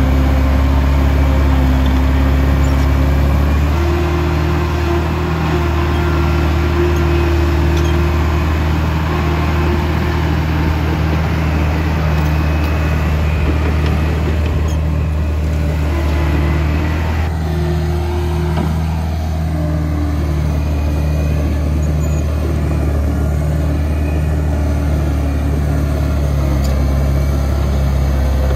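Track loader's diesel engine running steadily with a deep, loud drone, and a higher whining note that comes and goes above it.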